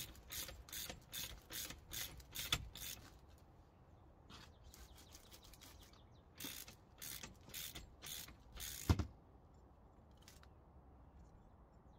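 Hand ratchet wrench clicking in short runs, about three clicks a second, as it tightens the threaded compression rod of a MacPherson strut spring compressor to compress the coil spring. A single duller knock comes just before the end of the second run.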